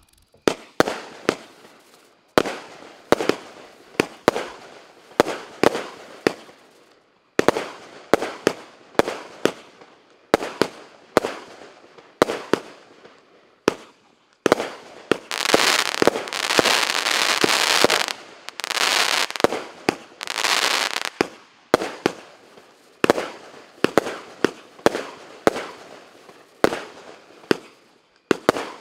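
A 36-shot fireworks cake (Lesli Monstrous Tyke) firing its shots in quick succession, each a sharp bang with a short decaying tail. Roughly halfway through, several shots run together into a few seconds of dense, continuous crackling and hissing.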